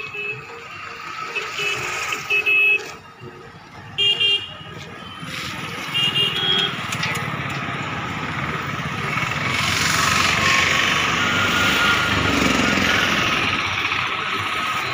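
Diesel engine of a JCB 3DX backhoe loader running as it loads a tractor trolley, growing louder from about nine seconds in. Several short vehicle-horn toots sound in the first half.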